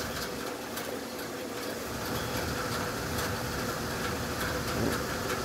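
Steady low background rumble and hiss, with a few faint clicks.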